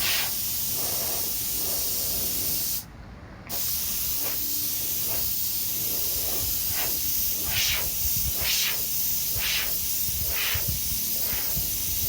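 Compressed air hissing steadily out of a small oil-free air compressor's tank as it is bled down so the motor will cut in. The hiss stops for about half a second around three seconds in, and there are several short louder puffs in the second half.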